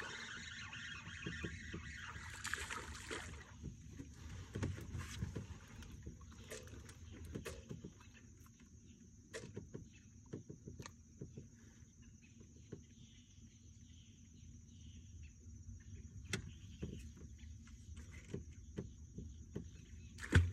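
Handling a freshly caught redfish aboard a small boat: scattered knocks and bumps against the hull and deck, with a rough hiss for the first few seconds and a thin steady high whine from about three seconds in. The loudest knock comes near the end.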